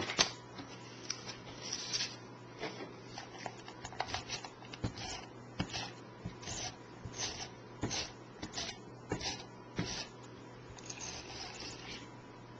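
Light rustling and scattered soft taps at an irregular pace: cardstock pieces being handled and laid down on a tabletop while a card is assembled.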